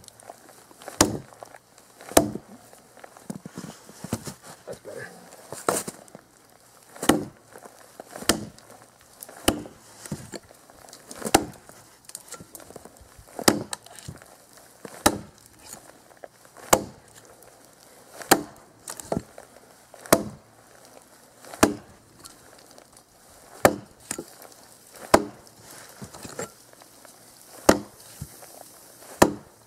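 Cold Steel Trail Hawk tomahawk chopping into a dead log: a steady run of sharp blows, roughly one a second, as the steel head bites into the wood.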